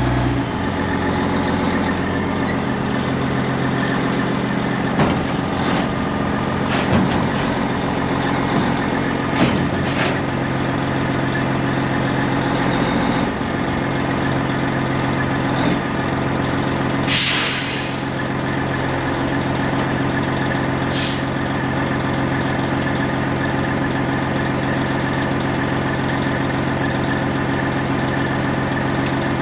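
Semi truck's diesel engine idling steadily, with scattered clicks and knocks in the first ten seconds. A loud hiss of released air comes about seventeen seconds in, and a shorter hiss a few seconds later.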